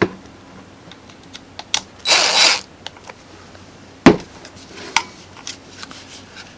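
Screws being driven into a DeWalt 20V MAX battery pack's plastic case with a T10 security Torx driver: scattered clicks and taps of the tool against the case, a half-second scraping rasp about two seconds in, and a sharp knock about four seconds in.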